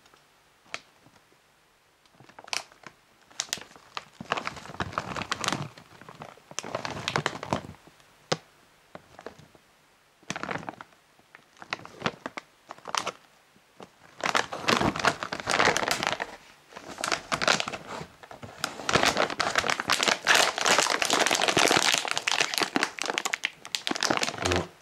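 Thick plastic snack bag crinkling in the hands, in scattered bursts as it is turned over, then crinkling and tearing continuously through the last ten seconds or so as it is pulled open.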